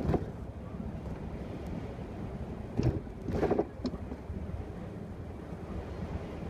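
Steady low rumble of a Mercedes city bus driving through town, heard from inside the bus. A few short knocks and rattles stand out: one right at the start and a cluster about three seconds in.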